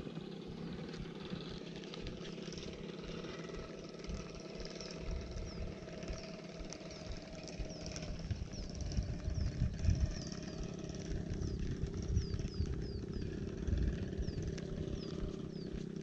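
Steady low hum of a motor, with low gusts of wind on the microphone from about a third of the way in. In the second half there is a run of short, high, falling chirps.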